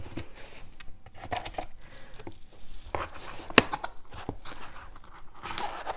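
Hands handling a brush pen and a fabric pen case: light rustling and scattered small clicks as the pen is fitted into the case's elastic loops, with one sharp click about three and a half seconds in.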